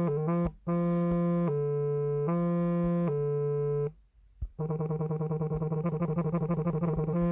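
Samsung Galaxy S8's vibration motor buzzing through vibration-pattern previews. First come two short pulses, then four longer steady buzzes back to back. After a break of about a second, a rapid fluttering pulse runs to the end.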